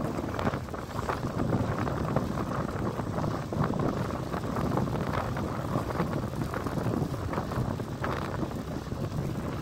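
Wind buffeting the microphone of a handlebar-mounted camera on a moving bicycle: a steady rush broken by irregular gusty flutters, with a low rumble underneath.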